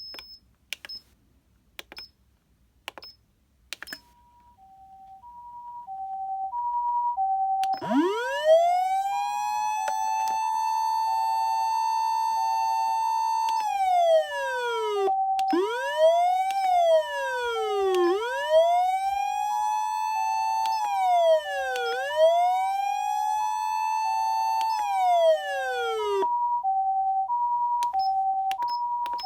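Osaka Siren OPS-5101V-Q ambulance siren amplifier: a few switch clicks with short beeps, then the hi-lo two-tone 'pee-poh' ambulance pattern starts quietly and grows loud. About eight seconds in, a wailing siren rises and is held over the two-tone, falling and rising again several times, and it stops near the end while the two-tone goes on.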